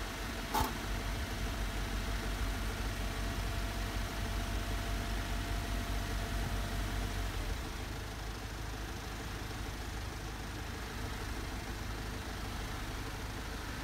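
Car engine idling steadily at low pitch, easing slightly about halfway through, with a single sharp click about half a second in.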